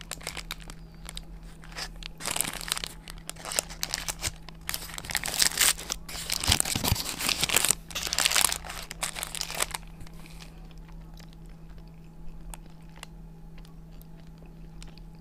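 Paper wrapper of a shawarma crinkling and tearing as it is peeled back from the wrap, in loud bursts through the first ten seconds. After that only faint chewing clicks remain.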